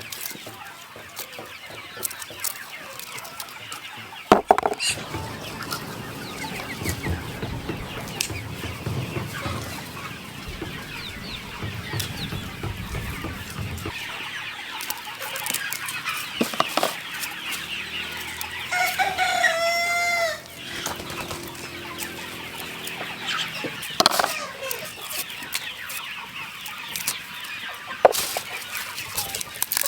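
A flock of chickens clucking, with a rooster crowing once, a drawn-out call lasting about a second and a half, a little past the middle. A few sharp knocks are heard, and a low rumble runs under the first half.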